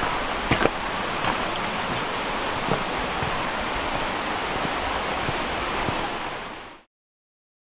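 Steady rush of a stream running in the wooded gully below, with a few footsteps crunching on a stony track in the first few seconds. The sound cuts off near the end.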